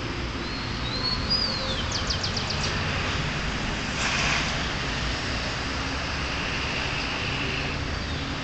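A bird sings one short phrase near the start, a few whistled glides followed by a quick trill, over a steady background rumble. Soft scratching of a dog digging with its front paws in loose soil, with a brief louder scrape about four seconds in.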